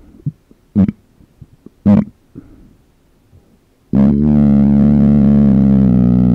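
Two short closed-mouth burps about a second apart, then, about four seconds in, a long, steady, low droning closed-mouth burp right next to the microphone that carries on past the end.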